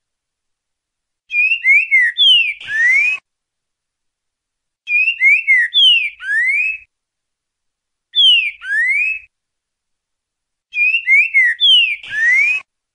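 Green-winged saltator (trinca-ferro) singing its 'boca mole ti boi' song: four short whistled phrases, each a few quick slurred notes that end in a long rising note, with silent gaps between the phrases.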